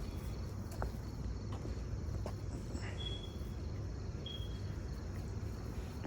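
Outdoor ambience: insects chirring steadily, with two short high chirps about three and four seconds in, over a low steady rumble.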